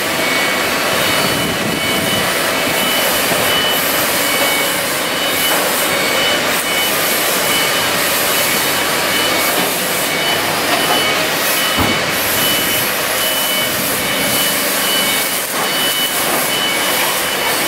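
A forklift engine running steadily as it hauls a heavy generator set on a roller skate across concrete. A faint high whine runs over the engine noise, and there is a single low thump about twelve seconds in.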